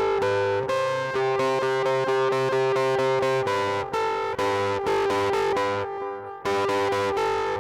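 Electric guitar through an Electro-Harmonix Nano Muff Overdrive pedal, playing a fast, repeating picked riff of ringing notes, with a brief break about six seconds in.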